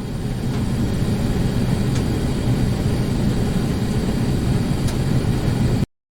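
Boat engine running with a steady low rumble, fading in and then cutting off abruptly near the end.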